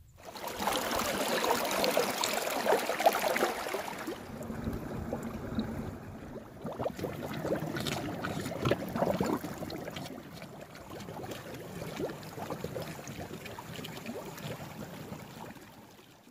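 Small stream running and gurgling under ice and icicles, louder for the first four seconds or so, then a lower trickle that fades near the end.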